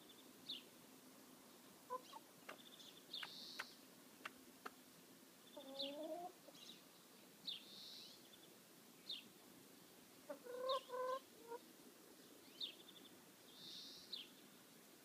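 Brown hen clucking softly: a short call about six seconds in and a quick run of clucks around ten to eleven seconds in.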